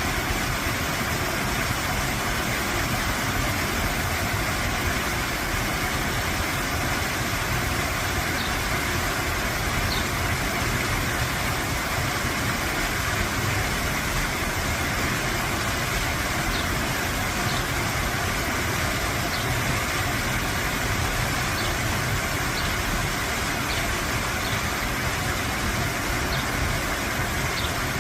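Waterfall: water rushing and splashing in a steady, unbroken roar.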